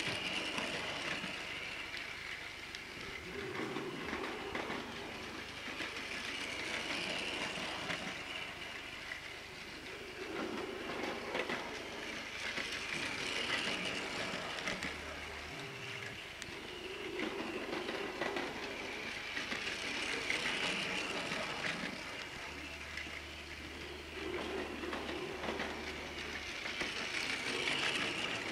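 Battery-powered Plarail toy train, the Yufuin no Mori, running on plastic track: a steady whirring motor with the rattle of its wheels over the track. It grows louder and fades again about every seven seconds as it laps past.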